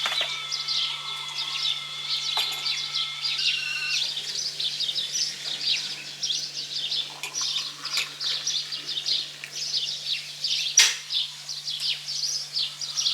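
Many birds chirping and calling, a dense chatter of short high notes. For the first few seconds it comes with a steady high whine, and there is a single sharp click near the end.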